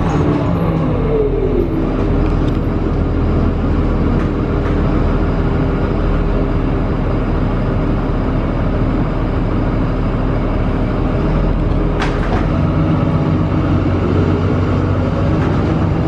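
Inside a moving 2006 Gillig hybrid bus, its Cummins ISB 5.9 L diesel and Allison EP40 hybrid drive running. A drivetrain whine falls in pitch over the first couple of seconds, holds steady, then rises again near the end as the bus picks up speed. A single sharp click comes about twelve seconds in.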